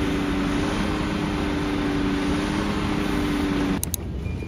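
Shuttle bus idling, a steady hum with constant low tones over a broad rush of noise. It cuts off suddenly near the end, leaving quieter background.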